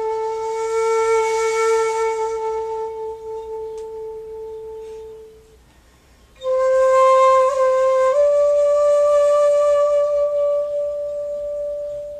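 Shakuhachi (Japanese end-blown bamboo flute) playing slow, long-held notes with a breathy attack. The first note fades out about five seconds in, and after a brief pause a new, louder note begins, steps up in pitch and is held.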